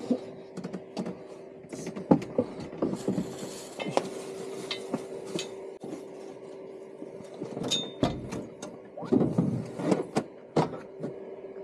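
Knocks, taps and clatters of small hard objects being handled, some loose and close together, over a steady low hum.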